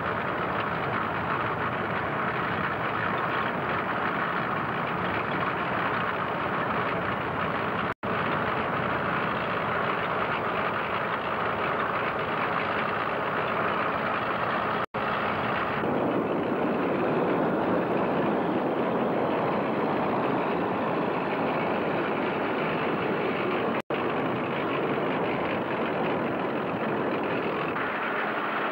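Hetzer tank destroyer's engine running with its tracks moving, a steady mechanical din. It cuts out for an instant three times and grows fuller and deeper about halfway through.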